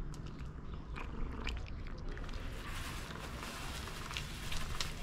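Persian cat eating dry kibble off a stone ledge: a string of small, crisp crunches as she bites and chews the pellets.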